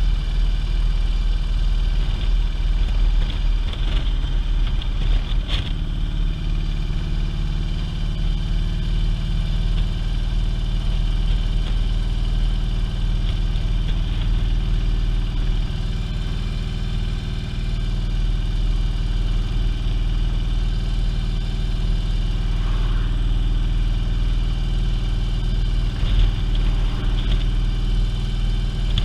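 Motorcycle engine running steadily at road speed, mixed with rushing wind on the bike-mounted camera.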